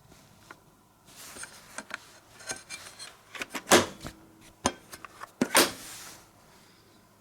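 A run of sharp clicks and short rustling, rubbing noises from something being handled, loudest about four seconds in and again near five and a half seconds.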